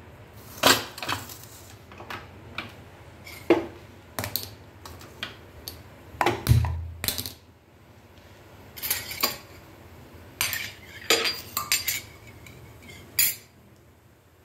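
Cumin and black mustard seeds crackling and popping in hot oil in a metal kadhai, the tempering (tadka) stage of cooking. Irregular sharp pops, some in quick clusters, with a duller thump about halfway through.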